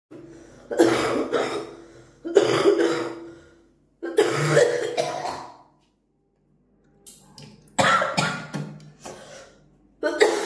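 A person forcefully coughing and hawking to bring up phlegm from the throat during a cold: five harsh bursts, each a second or so long, with short pauses between them.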